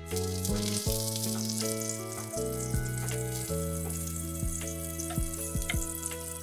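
Food frying in a pan, a steady high sizzle that starts suddenly, over soft background music.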